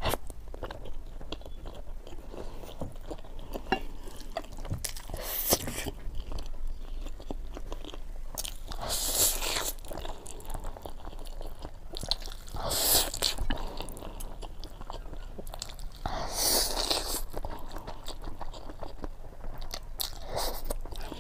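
A person eating spicy instant noodles and boiled eggs close to the microphone: steady chewing and biting, with three louder, longer bursts of about a second each spread through.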